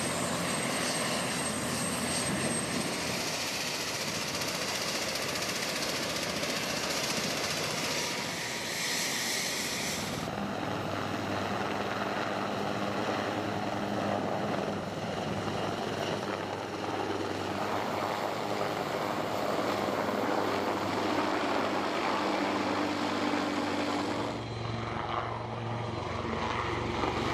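Bell UH-1Y Venom helicopter running, rotor turning and engines whining, first on the ground and then in low flight. The sound changes abruptly about a third of the way in and again near the end.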